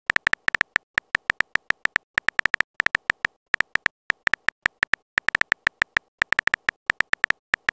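Phone keyboard typing sound effect: a quick, uneven run of short, high-pitched clicks, several a second with brief pauses, one click per letter as a message is typed.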